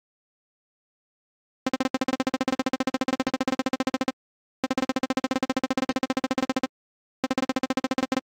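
Synthesized buzzy beeping talk sound: one steady electronic tone pulsed about ten times a second. It comes in three bursts with short silent pauses, standing in for a cartoon robot's speech as its words appear.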